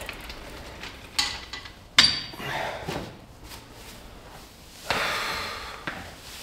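Metal clank of a Nautilus pullover machine's weight stack and arm being let down, a lighter knock about a second in and a loud ringing clank about two seconds in. About five seconds in comes one long, heavy exhale from the lifter, winded from a set taken to failure.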